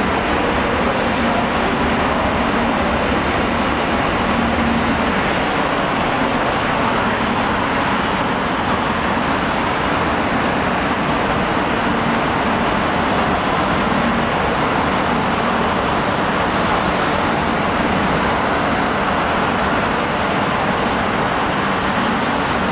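Steady vehicle noise, an even rumbling hiss with a faint low hum, without breaks or distinct events.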